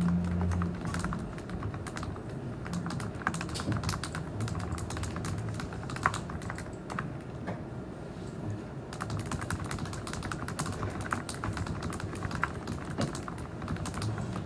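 Typing on a computer keyboard: a continuous, irregular run of key clicks.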